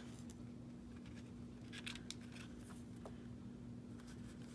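Faint rustles and light clicks of a vellum sheet and a paper cutout being handled, a few short strokes about two and three seconds in, over a steady low hum.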